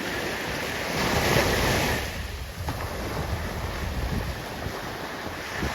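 Surf washing up the beach, with one louder wave surge about a second in, and wind rumbling on the microphone.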